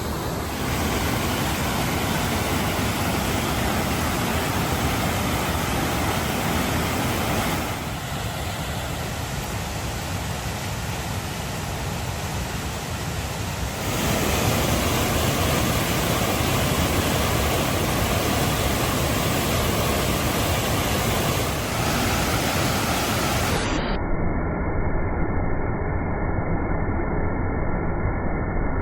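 Steady loud rush of falling water from a large waterfall. It drops a little about eight seconds in and comes back up about six seconds later. A few seconds before the end it turns abruptly duller, with the high part of the hiss cut off.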